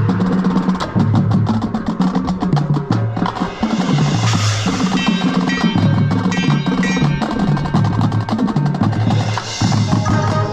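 Marching band music: drums and percussion hitting over a moving low bass line, with bright ringing mallet-percussion notes on top.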